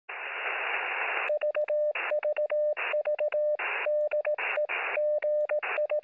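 Bursts of hissing radio static alternating with a Morse code tone keyed in short and long elements, dots and dashes. The first burst of static lasts about a second, and the later ones are shorter.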